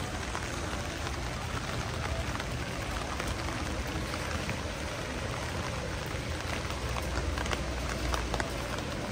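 Steady rain: an even hiss with many separate drops tapping close by, over a low rumble.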